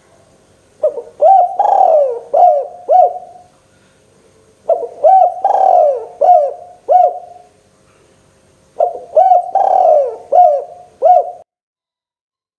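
Spotted dove (tekukur) cooing: three phrases of about five notes each, a few seconds apart.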